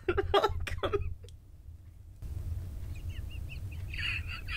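A woman's laughter: a few loud bursts, then after a short lull a long run of high, squeaky giggles stifled behind her hand.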